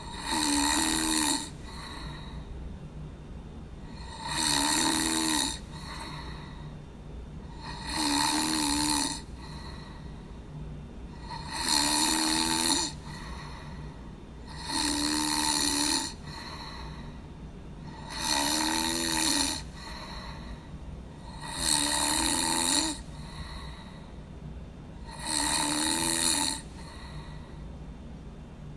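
A person snoring in a regular rhythm, eight snores about three and a half seconds apart, each lasting about a second, over a steady low hum.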